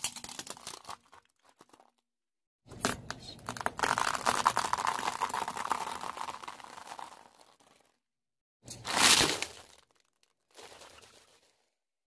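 A car tyre rolling over and crushing things in a series of short clips: an LED corn bulb cracking with a sharp snap and crackling, then dry pasta crunching for about five seconds, then a loud short crack of something breaking and a fainter one after it.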